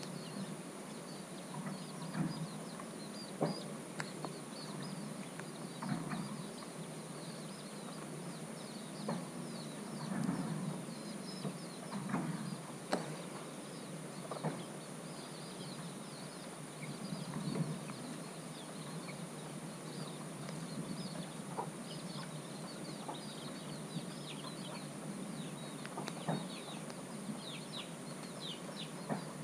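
Outdoor ambience of many birds chirping steadily, with scattered sharp taps.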